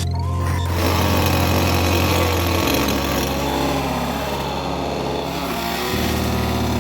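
Chainsaw running, over background music with a low bass line that changes note twice.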